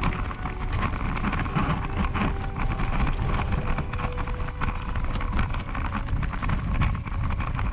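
Bicycle tyres rolling fast down a loose, rocky dirt track, with a continuous crunch of gravel and a rapid clatter of stones and the loaded bike rattling over the bumps.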